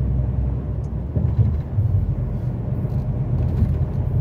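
Heavy truck's diesel engine and road noise heard inside the cab while driving: a steady low rumble.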